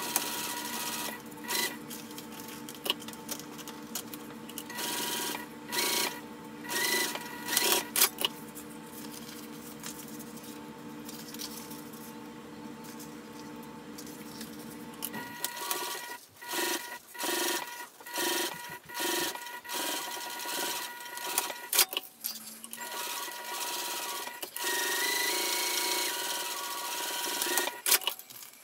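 A Juki sewing machine stitching a zipper seam in short runs, with sharp clicks between them. From about halfway the runs come as a regular series of short spurts.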